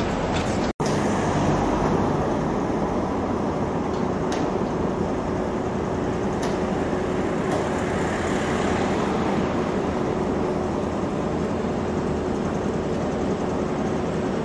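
Steady road traffic noise, broken by a momentary dropout a little under a second in; a faint steady hum runs under it from about four seconds in.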